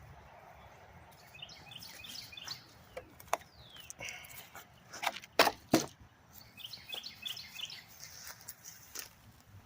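Songbird chirping in short repeated phrases, twice, over quiet outdoor ambience. Several sharp clicks or knocks come between the phrases, the loudest about five and a half seconds in.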